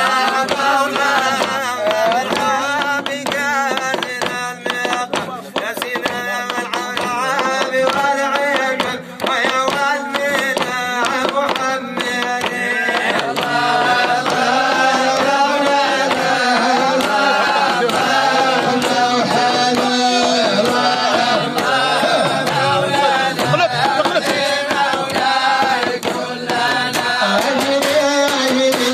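A man chants a Sufi devotional song (madih) with a long, ornamented melodic line, sung into a microphone. Sharp taps sound through it.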